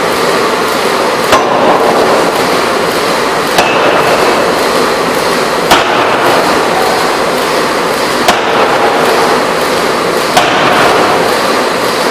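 Electro-hydraulic open die forging hammer at work, striking five sharp blows about two seconds apart over a loud, steady machinery noise.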